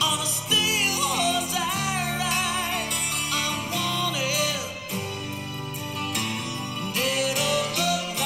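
Intro music: a wavering lead melody over steady held chords and bass.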